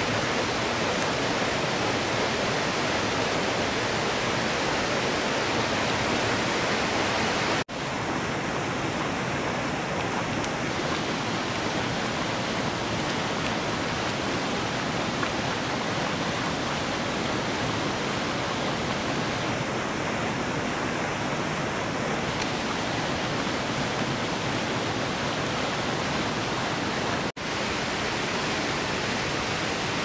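Waterfall rushing, a steady even noise that briefly drops out twice.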